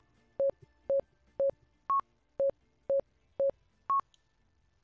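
Software metronome of the Band on the Cloud web app clicking at 120 beats per minute in 4/4 during recording: short beeps two a second, with a higher-pitched beep on the first beat of each bar. The clicks stop about four seconds in.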